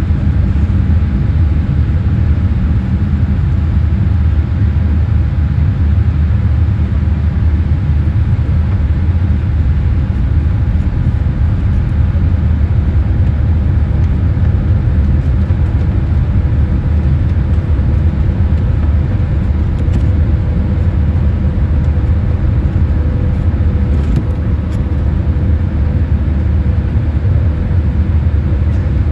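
Steady cabin noise inside a Boeing 787-8 airliner descending through cloud: a constant low rumble of engines and airflow, with faint steady hum tones above it.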